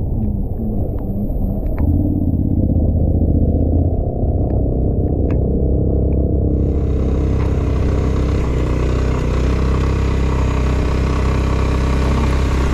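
Suzuki Burgman 400 scooter's single-cylinder engine running while under way, a steady low rumble mixed with wind and road noise. A few faint clicks come in the first half, and about halfway through a steady hiss joins in.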